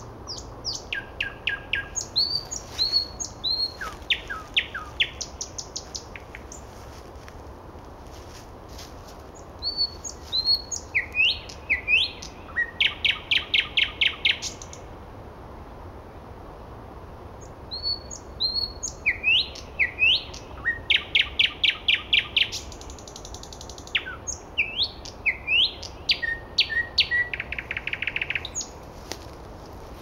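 A nightingale singing in four phrases, each a few seconds long, with pauses between them. The phrases mix clear whistles and sliding notes with fast, loud runs of repeated notes.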